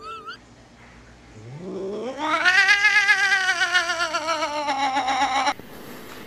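A domestic cat giving one long, drawn-out meow starting about a second and a half in. The pitch rises steeply at the start, wavers as the call is held for about four seconds, sinks a little and then cuts off suddenly.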